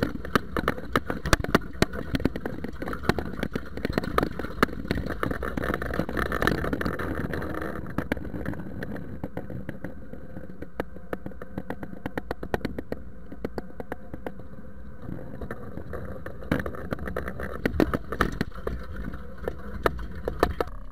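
Steel spring-tine cultivator with ring crumbler rollers rattling and clanking as it is dragged through soil, heard close up from its own frame, with the Zetor tractor's engine running underneath. The clatter eases for several seconds mid-way and picks up again near the end.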